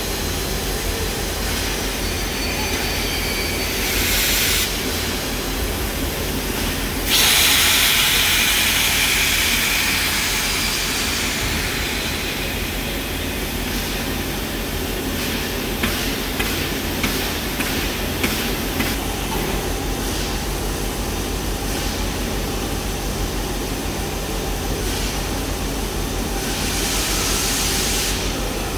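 LMS Royal Scot class 4-6-0 steam locomotive standing and letting off steam over a steady low rumble: a short hiss about four seconds in, then a loud hiss that starts abruptly about seven seconds in and fades away over several seconds, and another hiss near the end.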